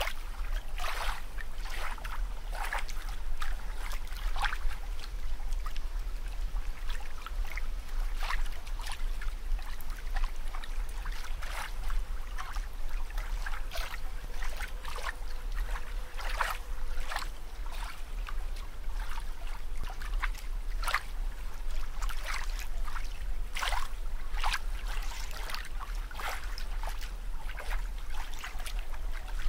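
Water bubbling and trickling, a stream of small irregular bubble pops several times a second, over a steady low rumble.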